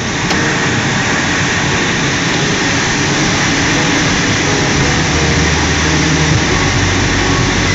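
Loud, steady rush of air over a glider's canopy in flight, with a low steady hum joining about five seconds in.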